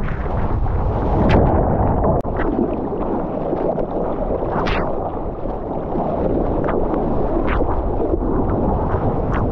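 Water rushing and splashing around a surfboard, with wind buffeting the microphone and a few brief, sharper splashes.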